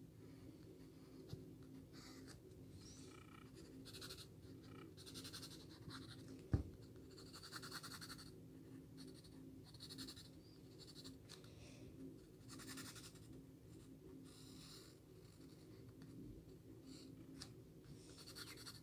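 Graphite pencil sketching on paper: faint scratching and shading strokes, short and irregular, about one every second or so, over a low steady hum. One sharp tap comes about six and a half seconds in.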